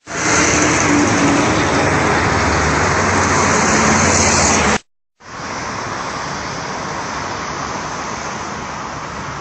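Steady rushing background noise, like street traffic, in two stretches split by a brief silent cut about five seconds in; the second stretch is quieter.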